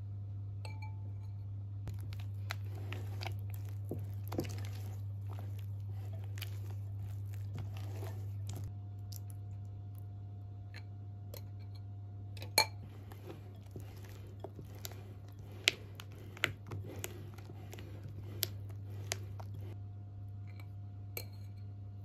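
A spatula mixing thick cake batter in a glass bowl as beaten egg is worked in. It makes irregular wet squelching and scraping, with several sharp clinks against the glass in the second half, over a steady low hum.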